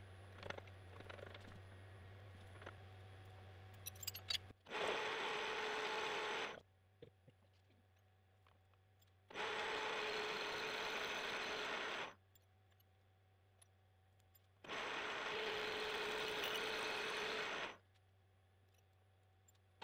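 A boring head in a CNC mill spindle cuts steel to enlarge a drilled hole. It makes three loud passes of cutting noise, each about two to three seconds long, with short quieter gaps between them. Before the first pass there is only a low hum with a few ticks.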